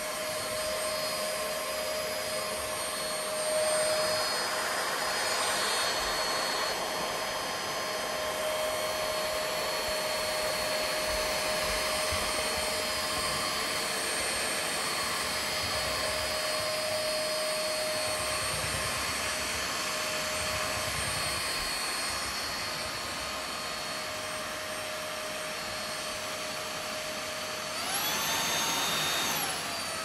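MooSoo K17U cordless stick vacuum with a brushless motor running: a steady motor whine over rushing air, with a few low bumps. Near the end the motor speeds up to a higher whine for about two seconds, then drops back.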